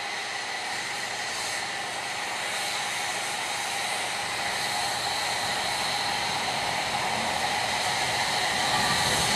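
Narrow-gauge steam locomotive hissing steam steadily as it approaches, growing gradually louder, with no exhaust beats.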